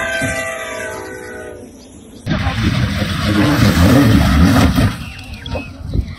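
A horn of several notes sounds and fades out about two seconds in. An abrupt cut follows, to loud, heavy rumbling and crashing noise that eases off near the end.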